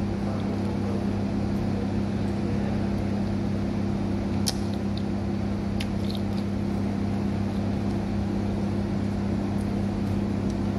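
Steady low machine hum, even throughout, with a few light clicks and taps about halfway through.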